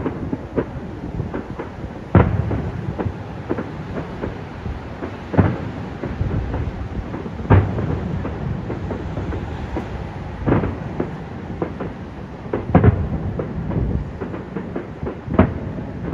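Fireworks display: aerial shells bursting in loud booms every two to three seconds, about six in all, with a steady crackle of smaller pops between them.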